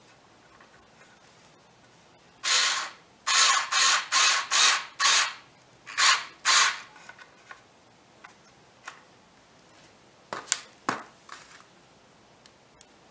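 Power drill driving a screw into a pine furring-strip frame in about eight short trigger bursts, then a few sharp clicks and knocks near the end.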